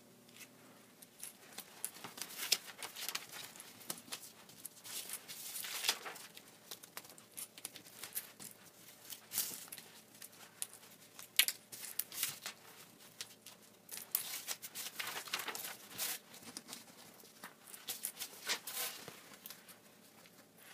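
Paper plan sheets being pulled off foam board by hand: irregular rustling and handling of paper, starting about a second in.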